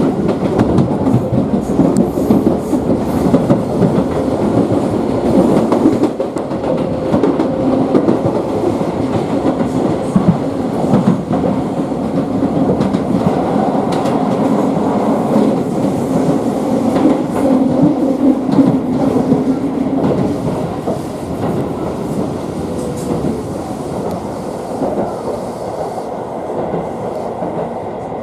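Tobu Skytree Line train running, heard from inside the passenger car: a steady rumble of wheels on rail with repeated clickety-clack over the rail joints. It grows quieter over the last several seconds.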